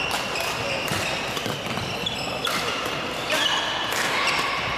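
Badminton rally: rackets sharply striking the shuttlecock several times, with shoes squeaking on the court floor and background chatter echoing in a large gym hall.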